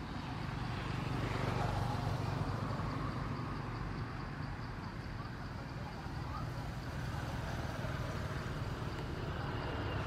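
Steady low rumble of background noise, with a steady high-pitched drone above it.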